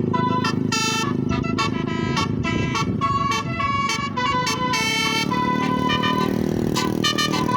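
Bus telolet horn, a Basuri multi-tone musical air horn, playing a quick tune of short changing notes over the steady rumble of the bus's engine.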